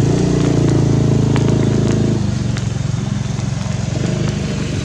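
A motor engine running steadily, its higher tones falling away about two seconds in.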